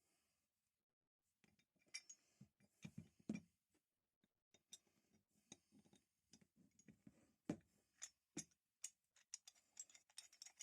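Scattered small clicks and clinks of metal tool parts being handled. There are a few at first, and they come closer together near the end.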